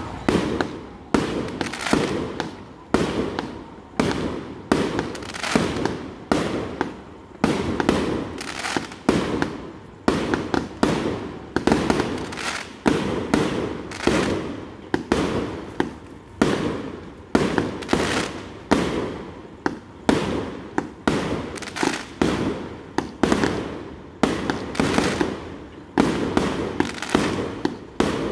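Aerial firework cake firing shell after shell into the sky: a steady run of sharp bangs, a little more than one a second, each fading off quickly before the next.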